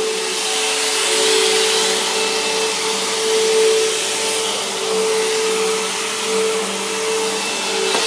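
Bissell CleanView Helix Bagless upright vacuum cleaner running steadily as it is pushed over carpet: a constant motor hum under a strong hiss of rushing air, the level wavering slightly.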